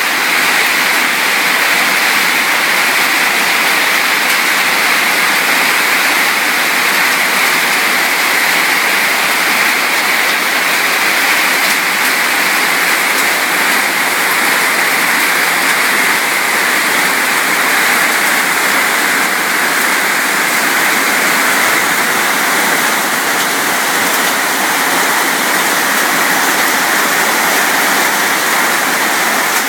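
Heavy rain falling, a steady, even hiss of water that never lets up.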